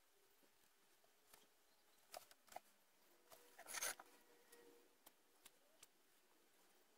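Near silence with a few faint taps and clicks, and a brief scrape a little past halfway as the wooden board is slid and turned on the workbench.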